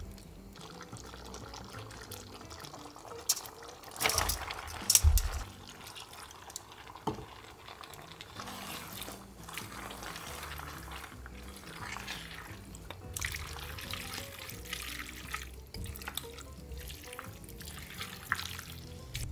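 Metal tongs tossing pasta through a thick cream sauce in a skillet, with wet squishing and stirring. A few sharp clinks of the tongs against the pan come about four to five seconds in.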